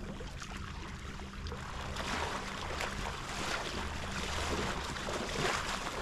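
Small motorboat's engine running steadily, with a rush of water and wind that grows louder about two seconds in.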